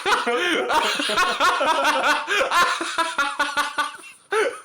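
Hard laughter in rapid breathy bursts, dying down near the end with one last short burst.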